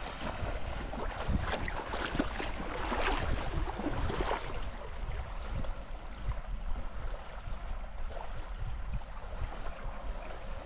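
Wind buffeting the microphone with a steady low rumble, over splashing and rushing of shallow stream water. The splashing is strongest and choppiest for the first four seconds or so, as a wader strides through the current, then eases to a steadier flow.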